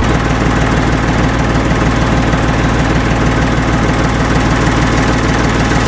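Farm tractor engine running steadily at a constant speed.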